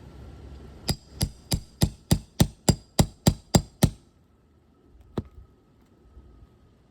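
Roofing hammer striking a steel nail puller about eleven times in quick, even succession, roughly three blows a second, with a short metallic ring on each, then one more blow a moment later: driving the puller's claw under a roofing nail head in an asphalt shingle to pull it.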